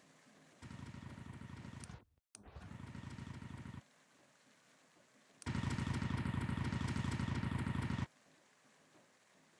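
A motor-like buzzing that starts and stops abruptly three times: two stretches of about a second and a half separated by a brief dropout, then a louder stretch of about two and a half seconds.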